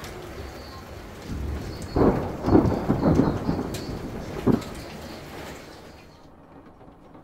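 Heavy rain pouring down in a thunderstorm, with thunder rumbling in several swells from about two seconds in. The rain hiss drops away abruptly about six seconds in.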